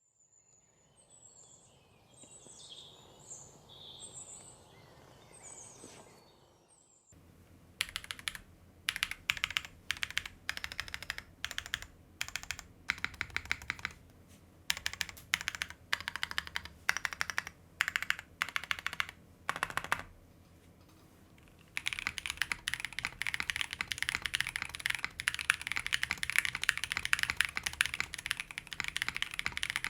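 Faint high chirps for the first several seconds. Then a Swagkeys Shelby80 mechanical keyboard with stock unlubed Zaku switches, an aluminium plate and CRP Tulip keycaps types in short bursts of keystrokes. From about two-thirds of the way in it types fast and continuously.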